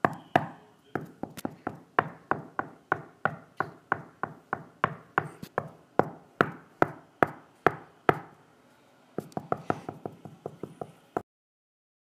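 A series of sharp knocks in a steady rhythm, about three a second. They pause for about a second after eight seconds, come back faster for about two seconds, then cut off abruptly.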